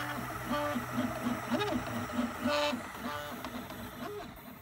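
Stepper motors of a homemade GRBL-controlled laser engraver whining as they drive the laser head back and forth while engraving, in a run of short pitched tones that rise, hold and fall again about every half second.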